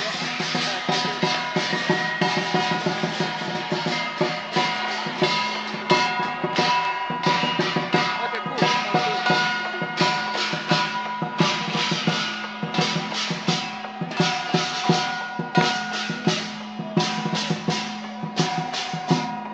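Chinese lion dance percussion: a large drum beaten with clashing cymbals in a steady, driving rhythm, the cymbals ringing on between strokes.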